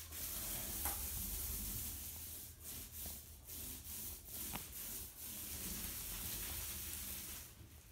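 Paint roller rolling across a drywall wall, a steady hiss broken by several short dips where the stroke changes direction. It stops shortly before the end.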